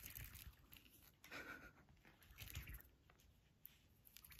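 Faint scratching and rustling as a cat wrestles a red feather toy on carpet, biting it and raking it with its claws, with a brief louder rustle about a second and a half in.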